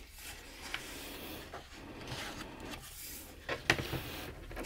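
Paper pages of a softcover book being turned and rubbed by hand: a soft rustling with a few light taps, louder near the end.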